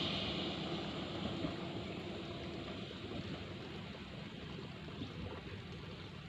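A passing train's rumble dying away as it moves off, a steady noise without any horn that slowly fades.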